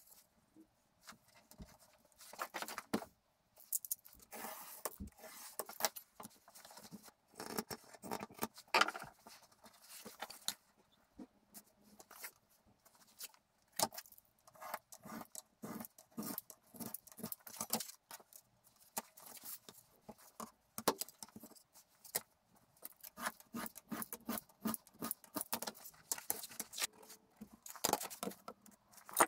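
Intermittent workbench handling: tools clinking and being set down, and foil-faced sheets rustling. Later comes a knife scoring thin mahogany veneer along a metal straightedge, in runs of short scraping strokes.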